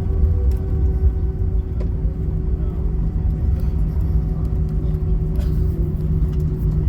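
Jet airliner cabin on the ground after landing: steady low rumble of engines and wheels on the pavement, with a constant engine hum and a few light rattles.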